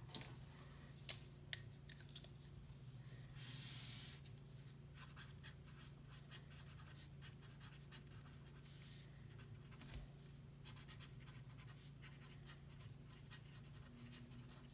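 Felt-tip marker writing on paper: faint scratchy pen strokes, with a few sharp clicks in the first two seconds, over a low steady hum.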